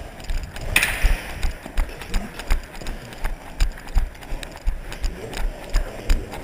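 Quick, regular footfalls of airsoft players running on a debris-strewn concrete floor, picked up by their body-worn cameras along with the rattle and knock of their gear. A short hiss about a second in.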